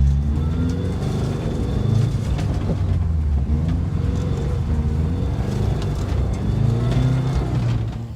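Subaru rallycross car's engine being driven hard, revving up and dropping back again and again, the pitch climbing and falling every second or so.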